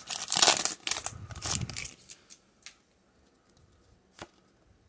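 Foil Pokémon booster pack wrapper crinkling and tearing as it is ripped open by hand, for about two seconds. After that it goes quiet, apart from a couple of faint clicks as the cards are handled.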